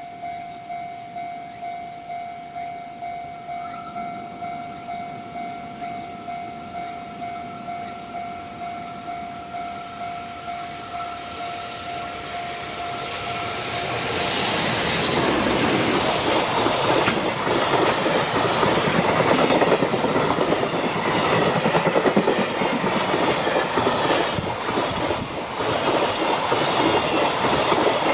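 Japanese level-crossing alarm ringing in a steady electronic clang, about two strokes a second. About halfway through, a JR Freight train reaches the crossing and passes, its wheels clattering over the rail joints and drowning out the bell.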